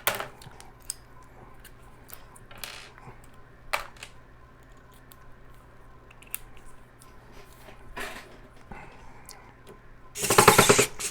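A few light clicks and taps of small metal parts and a drill bit being handled. About ten seconds in, a Power Extra cordless drill-driver runs briefly on a graphics-card screw, turning the wrong way so that it tightens the screw instead of backing it out.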